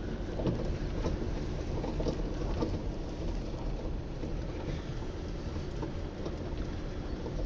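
A car driving slowly through a shallow river: a low engine rumble mixed with the steady wash and splashing of water around the tyres.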